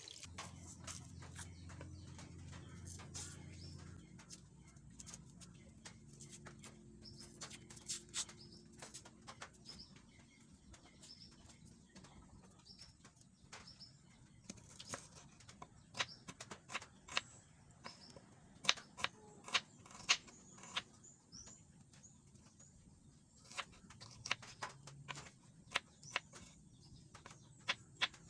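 Knife cutting a red onion on a bamboo cutting board: irregular sharp taps of the blade on the wood, with faint bird chirps in the background.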